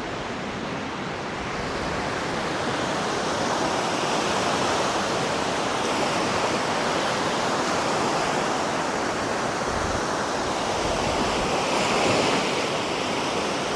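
Surf washing onto a sandy beach: a steady rush of waves that swells and eases slowly.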